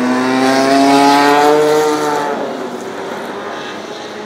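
Historic Formula One car's engine accelerating past, its pitch rising steadily for about two seconds, then fading as the car pulls away.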